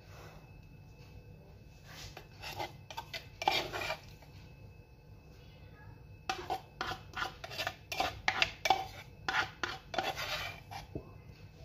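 Spoon scraping and clinking against small bowls as ingredients are scraped out: a short run of rapid scrapes and taps, then a longer one about six seconds in.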